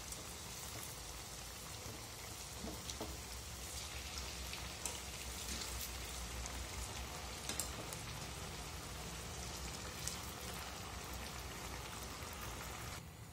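Medu vadas deep-frying in hot oil in a kadai: a steady sizzle with scattered crackles and pops as they cook toward golden brown.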